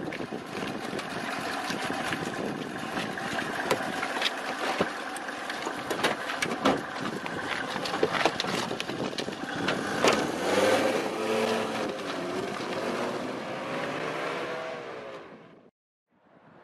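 Wind buffeting the microphone, with many short knocks and thuds around a car. About ten seconds in, a wavering pitched sound joins; then all of it fades out shortly before the end.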